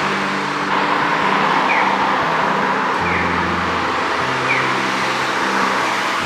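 Steady car traffic on a city street, with background music's low notes running underneath.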